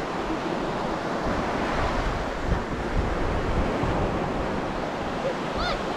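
Sea surf washing onto a beach, with wind buffeting the microphone in a low, gusting rumble.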